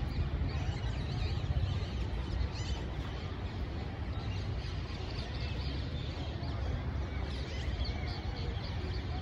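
Many birds chirping in short, scattered calls over a steady low rumble.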